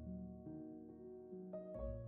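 Soft, slow instrumental background music: a few single sustained notes over a low bass note, with no voice.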